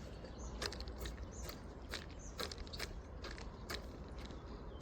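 Irregular small clicks and crackles, roughly two a second, from fishing tackle being handled close to the microphone.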